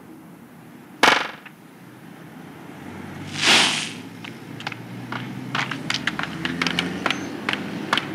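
High-heeled shoes clicking on pavement in quick irregular steps from about halfway through, over low street background. They are preceded by a sharp bang about a second in and a short hissing whoosh a couple of seconds later.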